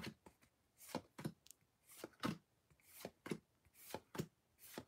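Pokémon trading cards being flipped through one at a time, each card sliding off the stack with a soft, faint swish, about two a second.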